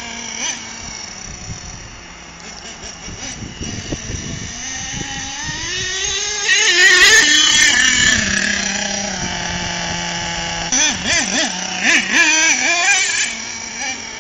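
HPI Savage X 4.6 RC monster truck's small nitro engine revving up and down under throttle: a long rising rev to its loudest about seven seconds in, a steadier note, then quick blips of the throttle before it fades near the end.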